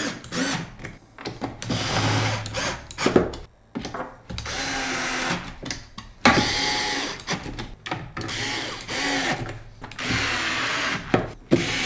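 Cordless electric screwdriver driving screws into an espresso machine's plastic base plate. The motor whirs in several short runs of a second or two each, with sharp clicks in the gaps.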